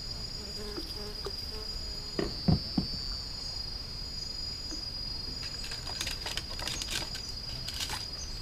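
Insects trilling steadily at one high pitch, with a few hard knocks about two and a half seconds in and a spell of light clicks and rattles in the second half.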